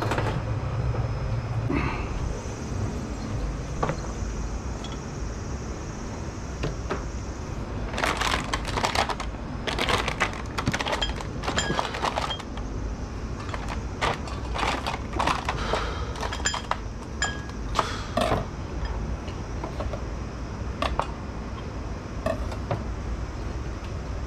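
Clinks, taps and knocks of kitchen utensils and stainless bowls being handled, in quick clusters about a third of the way in, thinning out near the end, over a steady low hum.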